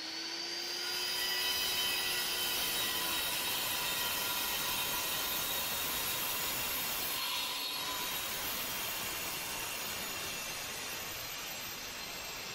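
Angle grinder coming up to speed with a rising whine in the first second, then running steadily as its disc cuts a chamfer along the edge of a refractory brick: a high whine over a grinding hiss.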